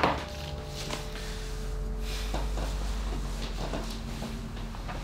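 Steady low room hum with a sharp click at the start, then faint scattered rustles and knocks as a person gets up from a table.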